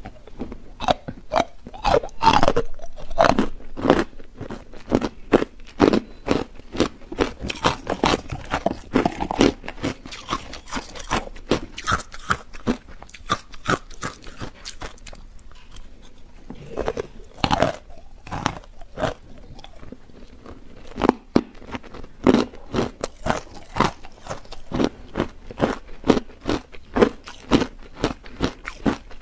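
Hard ice dusted with matcha powder being bitten and chewed close to the microphone: a steady run of sharp crunches, a few a second, thinning out briefly about halfway through.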